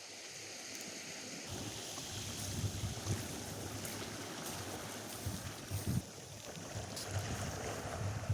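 Atlantic surf washing on a sandy beach under a steady wind, with wind buffeting the microphone; the wind rumble picks up about a second and a half in.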